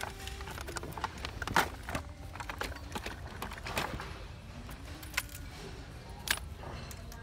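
Rummaging through fishing tackle: clicks and knocks of plastic tackle boxes being shifted, and small metal lures and hooks jingling. Sharper knocks come about a second and a half in and twice more near the end.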